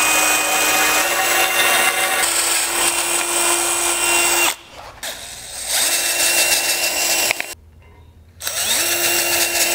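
DeWalt cordless drill boring through metal, running in three steady bursts with two short pauses and a quick spin-up before the last run. The holes are being drilled from the opposite side to deburr them.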